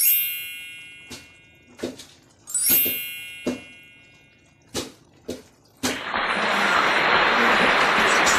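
Two bright chime sound effects, one at the start and one about two and a half seconds in, each ringing out and fading, with several short pops and clicks between them. From about six seconds in, a steady, even hiss-like noise takes over.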